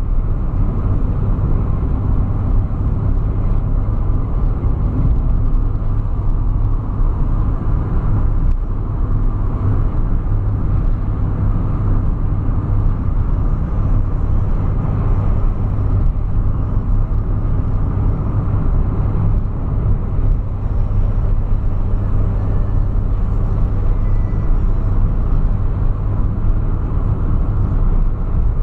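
Car driving along a highway, heard from inside the cabin: a steady low drone of engine and tyre noise.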